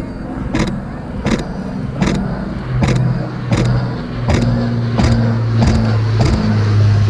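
Avro Lancaster bomber's four Rolls-Royce Merlin V12 engines droning overhead in a flypast, a steady low hum that grows louder from about three seconds in. A sharp click repeats about every two-thirds of a second.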